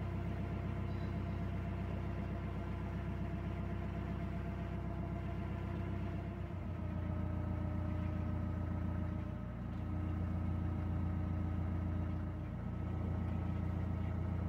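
A narrowboat's diesel engine running steadily at cruising revs, heard from on board as a low, evenly pulsing drone.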